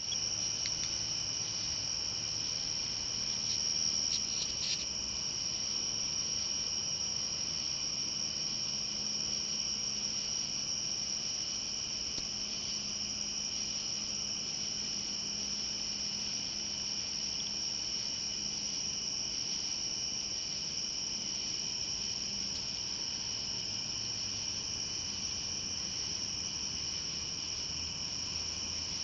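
Crickets calling in a steady, unbroken high-pitched chorus at a few different pitches, with a few faint clicks about four seconds in.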